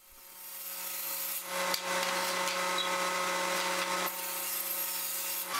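Table saw with an 80-tooth fine-cut blade running and crosscutting 3/4-inch maple plywood. The motor's steady hum builds over the first second or so, dense cutting noise comes in about a second and a half in, and it eases a little at about four seconds.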